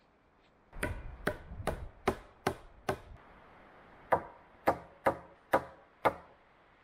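Wood being hammered: a log crossbar is knocked down onto an upright post. Six sharp knocks about half a second apart, a short pause, then five more.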